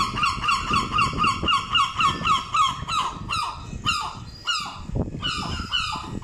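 Herring gull calling: a fast run of short, repeated yelping notes, about five a second, that slows about halfway through into longer notes falling in pitch.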